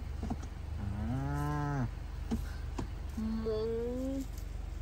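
A cow mooing twice: a long, drawn-out moo starting about a second in, then a second moo about three seconds in that rises slightly in pitch.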